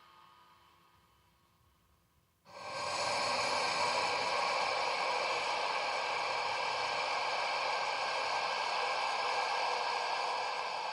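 A processed breath gasp starts suddenly about two and a half seconds in and is drawn out by delay and reverb into a long, steady breathy hiss; before it, the echoing tail of an earlier gasp fades away.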